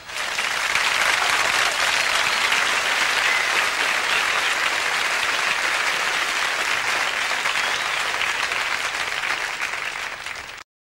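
Audience applause right after the song ends, a dense steady clapping that tapers slightly, then cuts off abruptly near the end.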